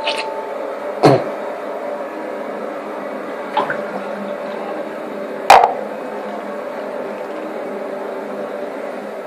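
Four sharp knocks and clacks of hard objects handled on a bathroom counter close to the microphone, the ones about a second in and at about five and a half seconds the loudest, over a steady hiss and hum.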